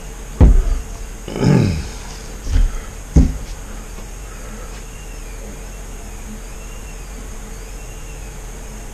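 Handling noise on a work table: a few dull thumps and knocks in the first few seconds as a paint bottle and tools are set down and picked up, then only a steady low hum.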